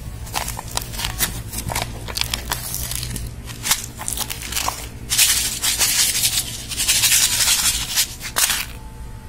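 Crushed plastic instant-noodle cup and its printed lid crackling and crinkling under a hand: scattered sharp crackles at first, then dense crinkling from about five seconds in that stops suddenly near the end.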